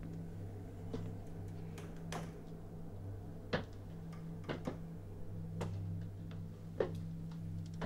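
Slow, soft footsteps, roughly one a second, over a low steady hum.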